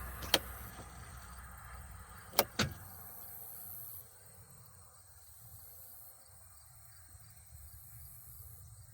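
Three sharp mechanical clicks in near quiet: one just after the start, then two about a quarter second apart around two and a half seconds in.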